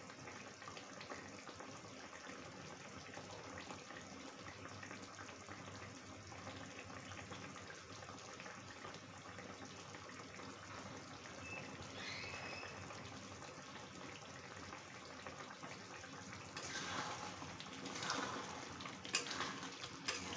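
Chicken curry gravy bubbling steadily as it simmers in a kadai. Near the end a metal ladle stirs it, clicking and scraping against the pan.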